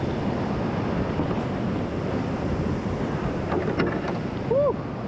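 Rushing creek whitewater around a kayak, a steady rush. It is broken by a few sharp knocks a little past halfway, and near the end by a short tone that rises and falls.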